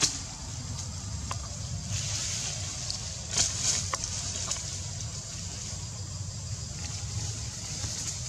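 Outdoor ambience: a steady low rumble and a steady high hiss, with a few short clicks or rustles, the loudest about three and a half seconds in.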